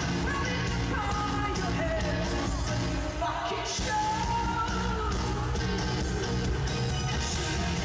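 Live pop-rock band playing, with drums and bass under a woman's lead vocal that is belted at times.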